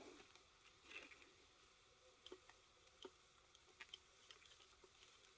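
A few light metallic clicks and clinks at irregular intervals, the sharpest about a second in, from the steel puller block, bolt and nut of a supercharger pulley removal tool being snugged back up by hand.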